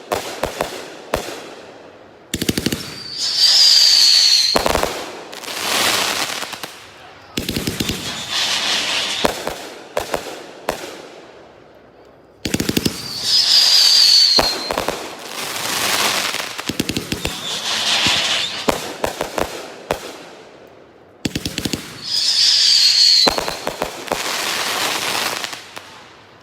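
A Brothers 'Shotgun Wedding' mixed-effect firework cake firing: quick volleys of sharp launch shots, each followed by long noisy bursts in the air. About three seconds in, again near the middle and once more near the end, a short high whistle falls slightly in pitch.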